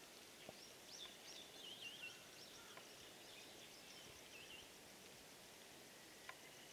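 Faint birdsong: several quick, warbling chirp phrases in the first half, then a faint rapid high ticking, over a quiet steady outdoor hiss.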